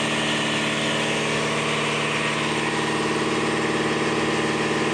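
A machine running steadily in the background: an even, unchanging droning hum with a hiss above it.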